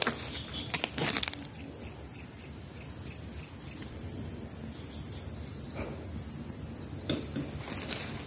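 A steady, high-pitched chorus of insects buzzing with a fast pulse, with a few soft knocks about a second in and again near the end.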